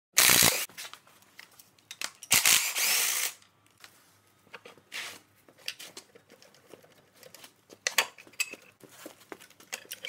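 Cordless impact wrench run in two short bursts, about half a second and then about a second long, undoing the bolts on a tractor's rear axle brake housing. Light metal clicks and knocks follow as the parts are handled.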